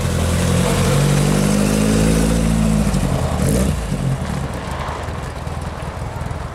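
Mk2 Ford Escort's engine running as the car pulls slowly past and away. The exhaust note is strong for the first three and a half seconds or so, then fades as the car drives off.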